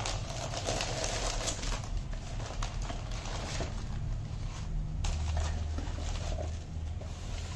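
Tissue paper rustling and crinkling as sandals are unwrapped and lifted out of a cardboard shoebox, with small taps and clicks of handling, over a low steady hum.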